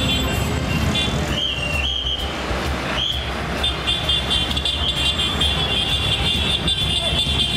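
Motor vehicles running with horns sounding over a steady engine and traffic rumble; two short horn-like tones rise in pitch about one and three seconds in.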